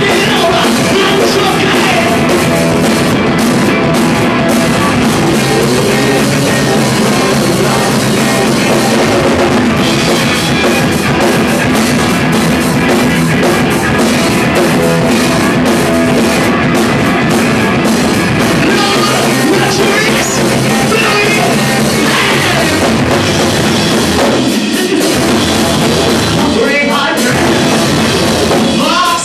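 A rock band playing live and loud: distorted electric guitar through a Marshall amp, bass and drum kit, with a singer's vocals over it.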